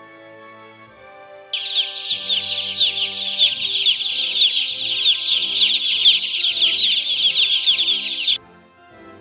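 Many chicks peeping together in dense, overlapping high calls. The calls start suddenly about a second and a half in and cut off abruptly near the end, over quiet background music.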